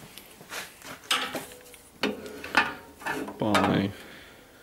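Sharp clicks and light knocks of a wooden folding ruler being unfolded and laid inside a sheet-metal cabinet, several separate strikes. A short hum of voice comes about three and a half seconds in.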